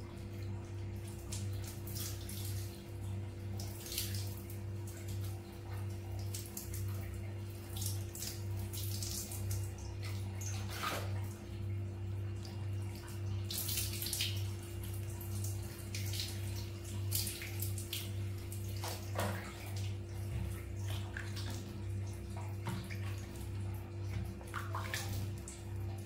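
Water poured from a plastic dipper splashing and trickling over a wet baby monkey, in uneven spurts several times over, with a steady low hum underneath.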